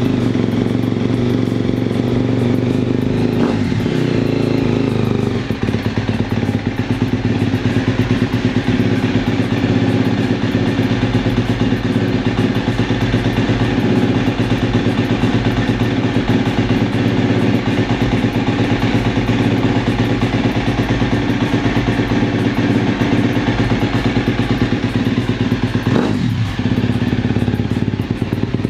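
A KTM 250 SX-F Factory Edition four-stroke single-cylinder dirt bike engine running at a steady idle just after starting. The throttle is blipped briefly twice, once about three and a half seconds in and once near the end.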